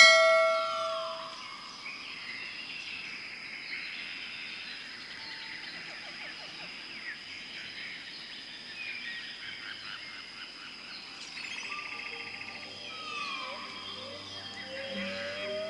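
Tropical forest ambience: many birds chirping and giving short sweeping calls over a steady high-pitched hum. A loud ringing call at the very start is the loudest sound, and a rising glide comes in near the end.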